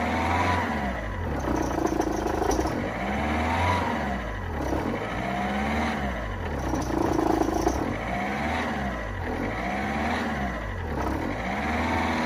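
Peugeot 206 1.4 HDi four-cylinder diesel engine revving up and dropping back again and again, roughly every one and a half to two seconds. The car is being driven alternately forwards and in reverse against its applied handbrake to work the stiff rear suspension.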